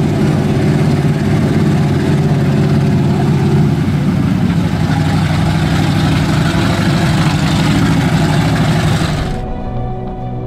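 Lifted mud truck's engine running hard under load through a flooded mud pit, loud and fairly steady, easing slightly about four seconds in. Near the end it cuts off abruptly and background music takes over.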